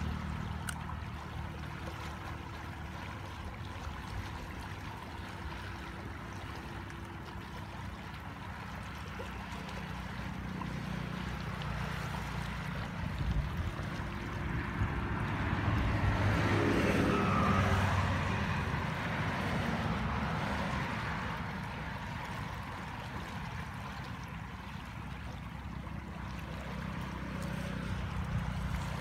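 Muddy floodwater rushing steadily along a swollen channel, with a low rumble underneath. A louder rush swells and fades about halfway through.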